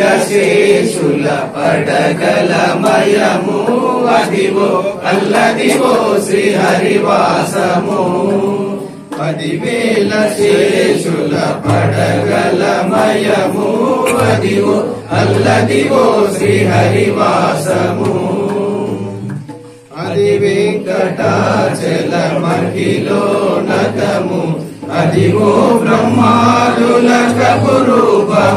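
Two men chanting devotional verses in unison through handheld microphones and a loudspeaker system, with brief breaks between lines. A steady low beat of about one pulse a second joins about twelve seconds in.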